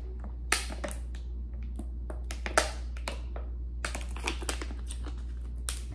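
Drinking from a plastic water bottle: irregular gulps and short crackles of the thin plastic, the sharpest about halfway through, over a low steady hum.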